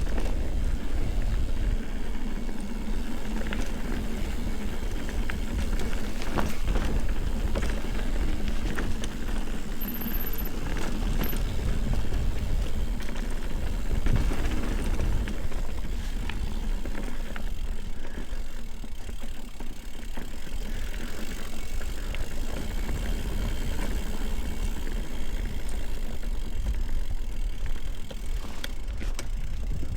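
Ibis Ripley mountain bike being ridden along a dirt trail: steady tyre rumble with many small rattles and clicks from the bike over bumps.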